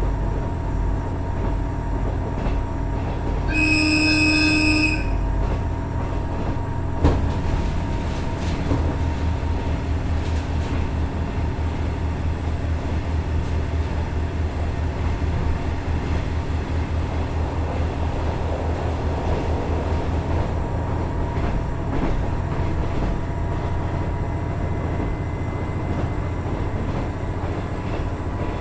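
Running sound heard inside a KiHa 110 series 200-subseries diesel railcar: its Cummins DMF14HZA diesel engine under way and the wheels on the rails, with a fast low pulsing from about a third of the way in. The railcar's horn sounds once, a short multi-tone blast, about four seconds in, and a sharp click follows a few seconds later.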